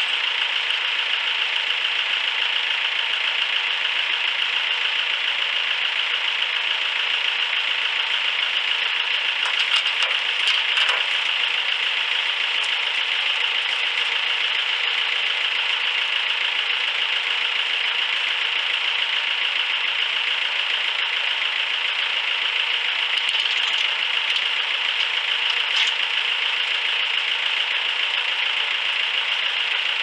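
Massey Ferguson 165 tractor engine idling steadily while its front loader holds a log, with a few faint knocks about ten seconds in and again near the end.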